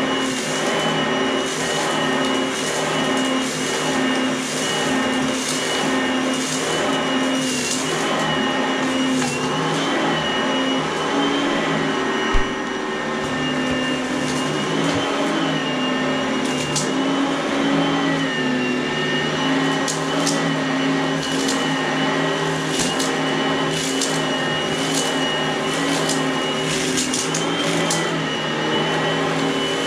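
Oreck upright vacuum cleaner running steadily with a high whine as it is pushed back and forth over a rug. It crackles and rattles in bursts as it sucks up crunchy debris. One sharp knock comes about twelve seconds in.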